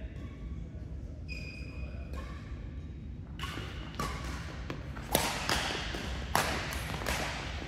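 Badminton rackets striking a shuttlecock in a doubles rally: three sharp hits, about four seconds in, about a second later and again a second and a quarter after that, the last two the loudest. Short high squeaks come earlier, in the first couple of seconds, typical of court shoes on the floor.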